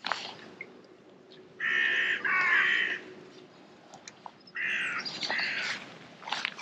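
A crow cawing: two pairs of harsh caws, one pair about two seconds in and another about five seconds in. Faint clicks of tackle being handled come between the calls.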